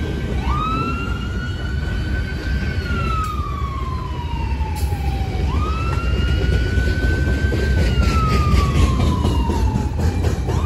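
Ambulance siren wailing in slow cycles: each one climbs quickly, then slides down over several seconds, and starts again about every five seconds. Underneath is the low rumble of freight boxcars rolling past on the rails.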